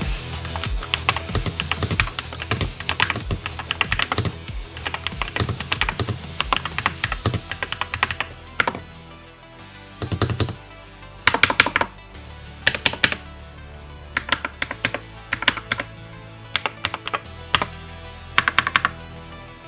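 Typing on a NuPhy Field75 HE keyboard with magnetic Jade switches: a fast, dense run of key clacks that thins to short bursts of keystrokes after about eight seconds, over background music.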